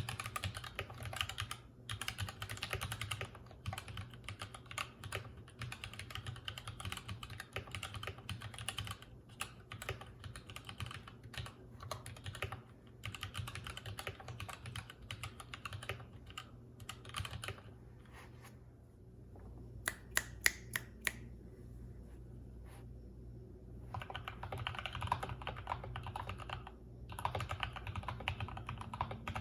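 Typing on a Durgod Hades 68 mechanical keyboard with Gateron Yellow linear switches, in quick runs of keystrokes. Past the middle the typing pauses for a few seconds, broken by a handful of single, sharper key presses, then picks up again. A steady low hum sits underneath.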